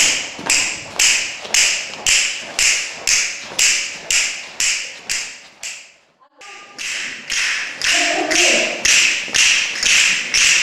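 A steady percussive beat of sharp taps, a little more than two a second, keeping time for the dancers. It drops out for a moment about six seconds in, then carries on.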